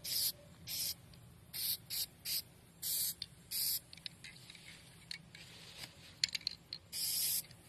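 Aerosol can of black spray paint hissing in short spurts onto a plastic planter: about eight quick bursts, the last one longer, with a few faint clicks between them about five to six seconds in.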